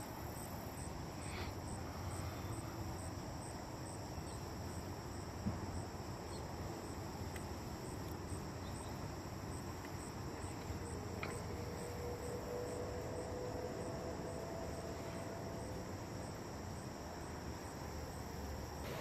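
Insects chirping steadily in a high, evenly pulsing chorus, with a low rumble underneath.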